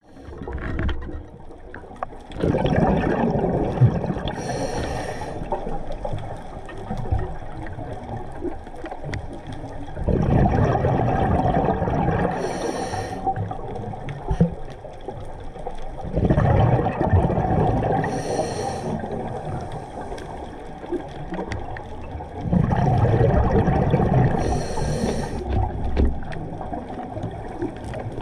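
Scuba diver breathing underwater through a regulator: a gurgling rush of exhaled bubbles lasting two to three seconds, repeating about every six seconds for four breaths, with a brief high hiss after each.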